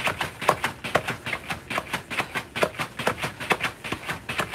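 Battle ropes slapping the floor in a steady rapid rhythm, about four slaps a second.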